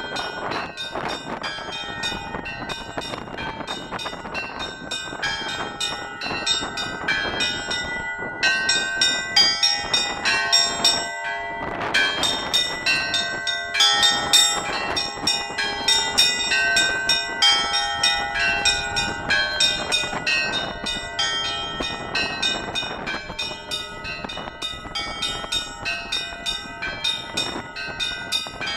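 Russian Orthodox church bells rung by hand: several bells of different pitches struck in quick succession, several strikes a second, in a continuous festive peal with the tones ringing on over one another.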